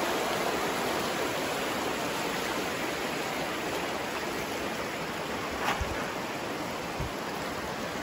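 Fast-flowing river rushing over a stony bed, a steady rush of water. Two brief low bumps come late on.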